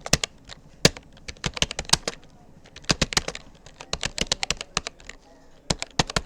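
Rapoo computer keyboard being typed on, its keys clicking in quick runs of several keystrokes broken by short pauses.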